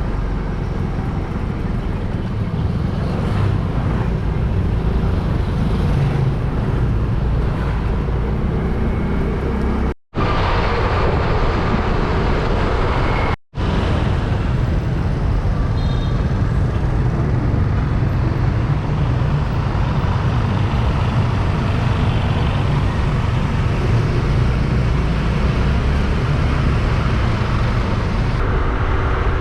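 Motor scooter on the move in traffic: steady engine and road noise with heavy low wind rumble on the microphone. The sound drops out abruptly to silence twice, about ten and thirteen seconds in.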